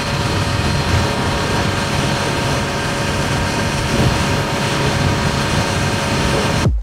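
Small motorboat under way at speed: steady engine drone mixed with the rush of wind and water, cut off suddenly at the very end.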